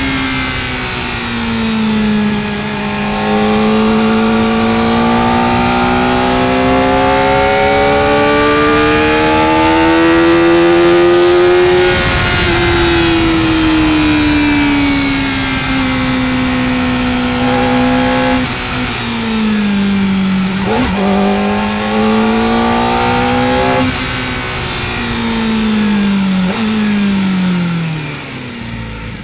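Kawasaki Ninja ZX-4R's 399 cc inline-four engine under way, its pitch climbing steadily through the revs for about twelve seconds, then falling off. In the second half the pitch jumps up sharply several times and falls again, as the rider shifts down while slowing for corners. Wind rushes over the microphone throughout.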